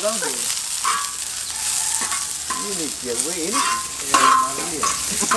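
Food sizzling in a hot pan, a steady hiss, with indistinct voices talking at times underneath.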